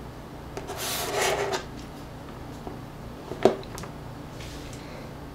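A hand scratching and rubbing at the hair for about a second, then a single sharp tap about three and a half seconds in, followed by a couple of faint clicks.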